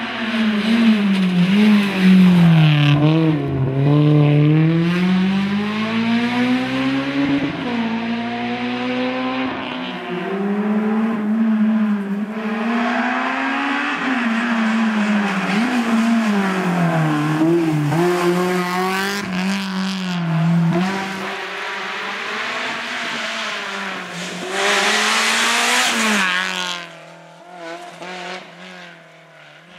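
Honda Civic N3 rally car's four-cylinder engine at full stage pace, its pitch climbing and dropping again and again through gear changes and braking for bends. A loud rush of tyre noise comes near the end, then the sound fades as the car drives away.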